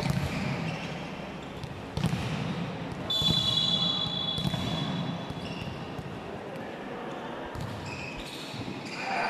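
Basketball bouncing on the court during a game, irregular sharp thuds over a steady background hum. A high, shrill steady tone sounds for over a second about three seconds in.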